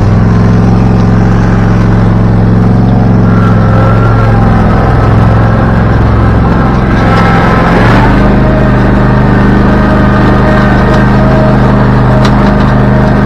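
Old riding lawn mower's small engine running steadily just after starting right up; its speed sags briefly, then steps up to a higher steady speed about eight seconds in.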